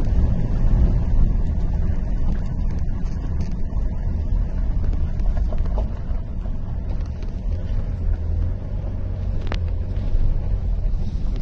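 Car driving slowly over a rough dirt road, heard from inside the cabin: a steady low rumble of engine and tyres. A single short click about nine and a half seconds in.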